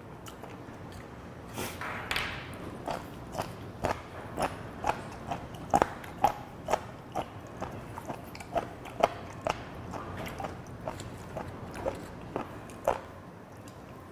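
Close-miked chewing of seafood: a run of wet mouth smacks and clicks, about two to three a second, with a short hiss about two seconds in.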